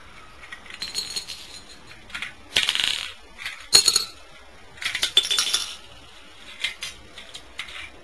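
Seashells and plastic Lego bricks clattering and clicking on a ceramic tile floor as a shell-laden Lego model is handled and shells are set down, in about five short bursts, the sharpest a little under four seconds in.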